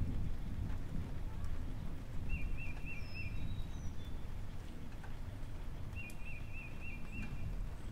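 A bird singing: a short phrase of about five quick rising-and-falling chirps, given twice, with a few higher single chirps between, over a steady low rumble.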